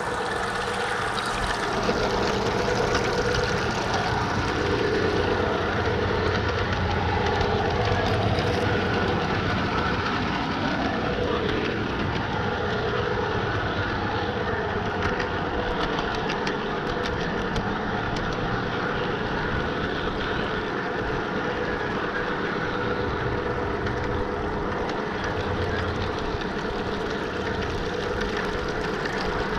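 Large-scale garden model train rolling along its outdoor track, heard from a car riding in the train: a steady running noise of wheels on rails.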